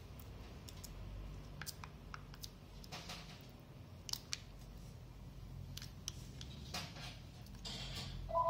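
Light scattered clicks and taps of small plastic bottles, caps and a syringe being handled on a tabletop while a reagent bottle is being opened, with a brief squeak near the end.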